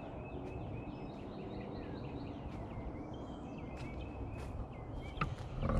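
Small birds chirping in quick repeated series over a steady low background rumble, with a couple of sharp clicks near the end.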